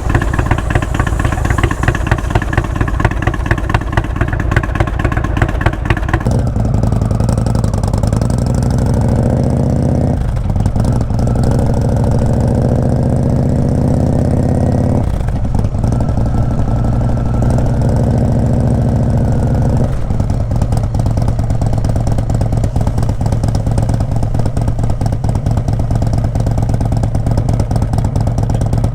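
Indian Springfield's V-twin running through a Freedom Performance aftermarket exhaust. For about the first six seconds the engine is revved hard with a crisp, rapid beat, then it settles to a lower, deeper steady note, with changes in pitch about ten, fifteen and twenty seconds in.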